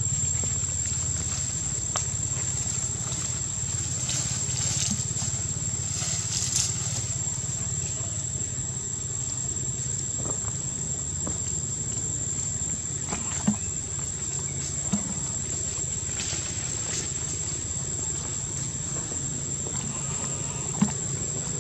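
Outdoor ambience: a steady high-pitched insect drone over a low rumble, with a few short ticks near the middle and end.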